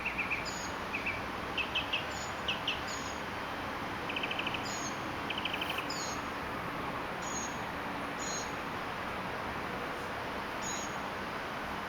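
Small songbirds chirping: a few short chirps, then two quick trills of rapid repeated notes in the first half, with high, thin, downward-sliding notes scattered throughout. Steady background noise runs underneath.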